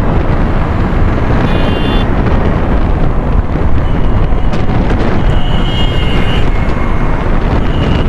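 Steady wind buffeting on the microphone of a phone mounted under a motorcycle rider's helmet while riding at speed, a loud low rush.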